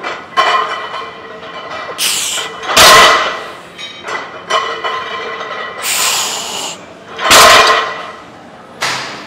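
Barbell loaded with 535 lb of plates set down hard on the gym floor between heavy deadlift reps: two loud impacts, about 3 s and 7½ s in, each with a short hiss of breath shortly before it.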